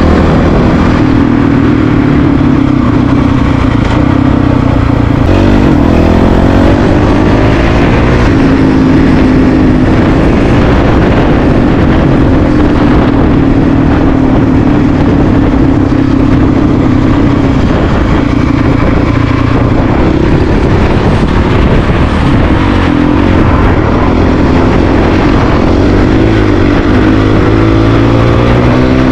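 Honda CRF450RL's single-cylinder four-stroke engine running under way, heard from on the bike over a steady rush of noise, its note rising and falling a few times with throttle and gear changes.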